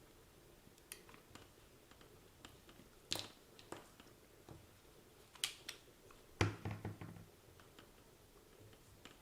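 Scattered light clicks and taps from handling small tools and an open plastic RC transmitter casing on a workbench. The loudest is a heavier knock about six and a half seconds in, followed by a few quick knocks.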